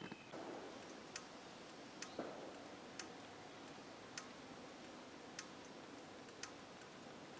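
Faint, sharp ticks about once a second over a steady hiss, with one duller knock about two seconds in.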